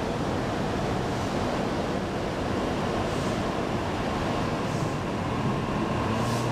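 JR East E233-series electric commuter train running slowly past along the platform: a steady rumble of the train moving on the rails.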